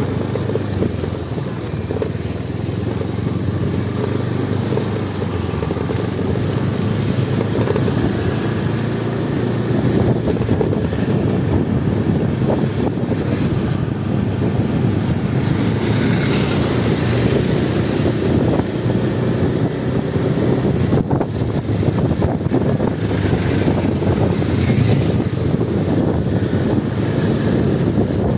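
Motor scooter engine running steadily while riding, with wind rushing over the microphone.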